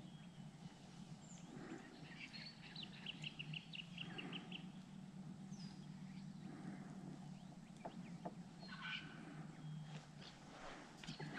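Faint bird calls: scattered high chirps and a quick run of about eight repeated notes, over a low steady hum.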